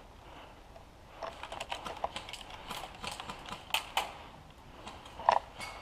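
An irregular run of small, sharp clicks and taps, densest in the middle, with one louder click about five seconds in.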